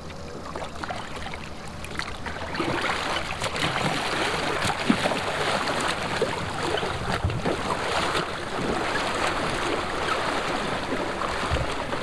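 Steady rush of wind and water with scattered small splashes, louder from about two and a half seconds in.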